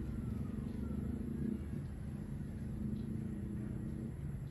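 A steady low rumble from a motor or passing vehicle, fading out about four seconds in.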